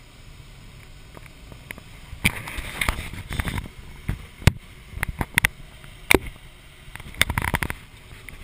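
Steady hiss of airflow in a glider cockpit, then from about two seconds in a string of sharp clicks, knocks and rubbing as the camera is moved about against the cockpit.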